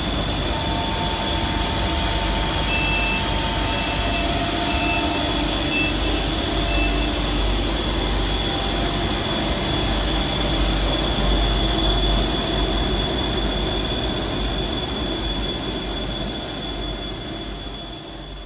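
Industrial plastic-regrind separating machine running steadily: a continuous mechanical noise with a constant high whine and a low hum. Five short beeps sound a few seconds in, and the noise fades out near the end.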